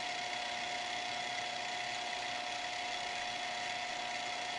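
Conn Stroboconn strobe tuner's electric motor and strobe-disc drive running steadily with an even whine. It is in motor warm-up, before its tuning-fork oscillator has started.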